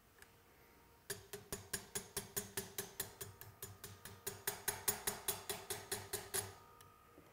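Quick, evenly spaced taps of a small hammer on a pin punch, driving the rear trigger pin of a Timney trigger into a Remington 700 action: about five taps a second, starting about a second in and stopping a second before the end, with a faint metallic ring under them.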